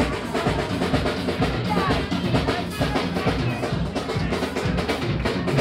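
Live rock band playing loudly, with a drum kit pounding out a fast beat under electric guitars.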